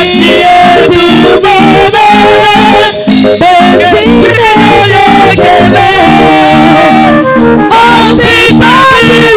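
Church praise music: singing over an instrumental band with a steady rhythm.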